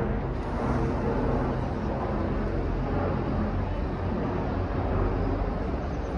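A train running at the station, a steady low drone with no sudden changes.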